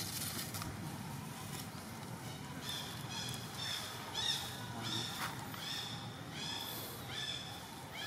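Short, high-pitched animal calls repeat about one and a half times a second, starting about three seconds in, over a low background hum.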